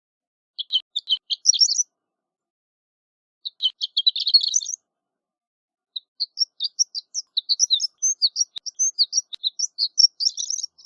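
Horned lark singing: two short phrases of high, quick notes, then from about six seconds in a longer, faster run of high notes.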